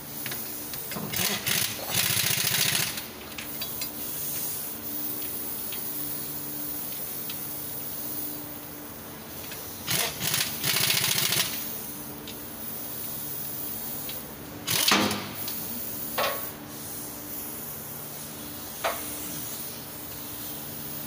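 Workshop work noise: two bursts of a rapidly rattling power tool, a couple of seconds each, over a steady mechanical hum, followed by a few sharp metal knocks.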